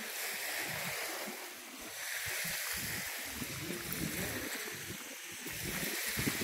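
Lake Ontario waves washing onto the beach, the wash swelling and fading every second or two over an uneven low rumble.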